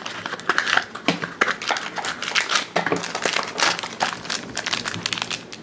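Foil blind-bag packet being torn open by hand, then a thin yellow paper wrapper crinkled and unfolded from around a small toy figure: a dense, irregular run of crackles and crinkles.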